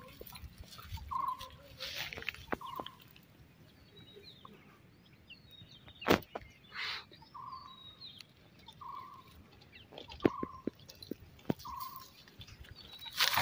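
A bird calling in short, repeated notes, about one every second or so, with fainter chirping of other birds higher up. A sharp knock comes about six seconds in, and a few lighter clicks come near the end.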